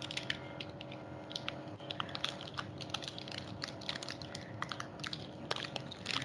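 Irregular light clicks and taps, several a second, over a faint steady hum.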